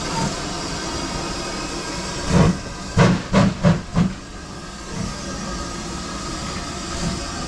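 Steam locomotive pulling its train out of the station with a steady hiss of steam. About two and a half seconds in come five loud exhaust chuffs, quickening, then softer, more widely spaced beats.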